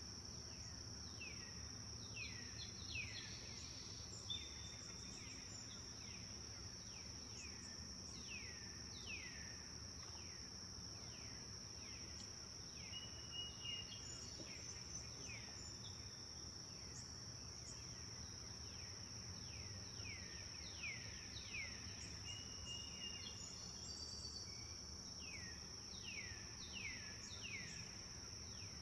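Forest birds calling, with many short notes that slide quickly downward and a few brief level whistles, over a steady high insect drone and a low background rumble.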